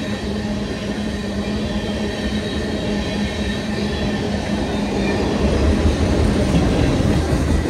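Freight train of tank cars and autorack cars rolling past at close range: a steady rumble of steel wheels on rail with a low steady hum, the rumble growing a little louder about five seconds in.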